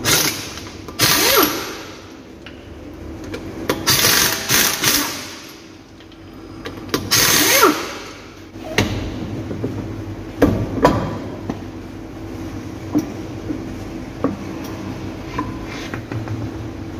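Impact wrench spinning off the wheel nuts of a Suzuki Ertiga in about four short, loud rattling runs over the first eight seconds. Then come a few sharp metallic knocks as the wheel is worked off the hub, over a steady background hum.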